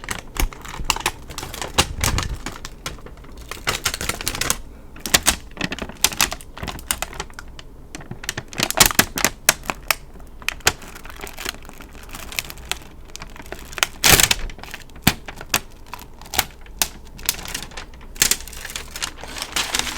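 A quick, irregular run of sharp clicks and taps, several a second, like keys being struck, with the loudest cluster about two-thirds of the way through.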